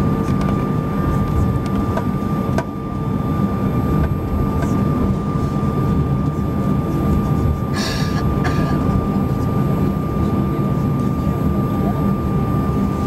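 Airbus A320 cabin noise while taxiing: the underwing jet engines at idle with a steady whine over a low rumble from the wheels and airframe. There is a click about two and a half seconds in and a short hiss about eight seconds in.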